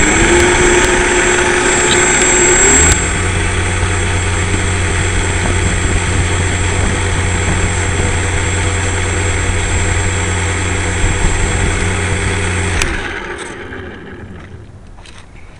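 Electric motor and propeller of an RC floatplane running right beside the onboard camera. It gives a high whine for about three seconds, then drops suddenly to a lower, steady hum that fades away near the end.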